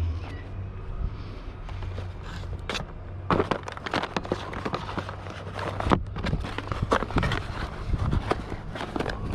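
Irregular knocks and clatter of objects being handled, starting about three seconds in, over a steady low hum.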